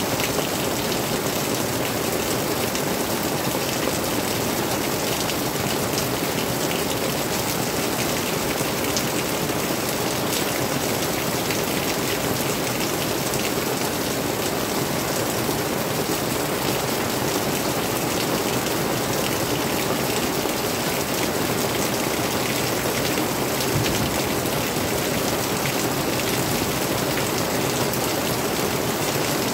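Steady rain falling: an even hiss with the fine ticks of many individual drops.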